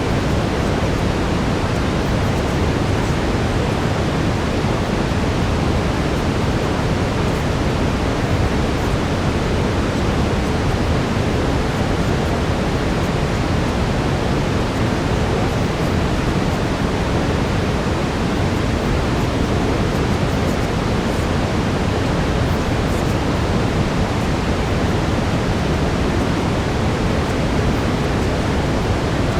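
Steady brown noise: an even, deep rushing hiss, heaviest in the bass, that does not change.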